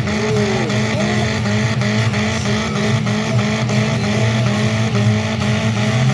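Straight-piped demolition derby car engine, with no muffler, revved hard and repeatedly, its pitch rising and falling about twice a second. It is being run so hard that it risks blowing up.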